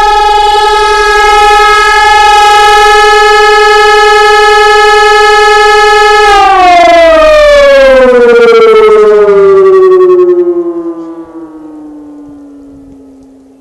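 E57 electromechanical civil-defence siren sounding a steady tone, then winding down. About halfway through, the pitch starts to fall slowly and the sound fades as the rotor coasts to a stop.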